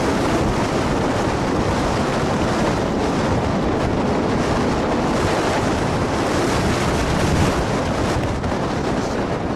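Strong wind blasting across the camera microphone: a loud, steady, rumbling roar of wind noise that buffets the mic.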